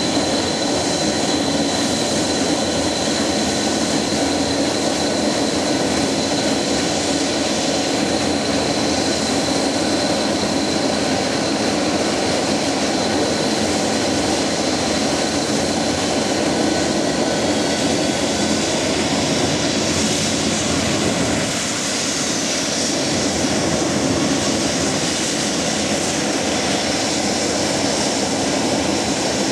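Boeing 737-200's JT8D turbofan engines running steadily at taxi power, a loud even roar. A thin high whine is heard over it and fades away over the first half.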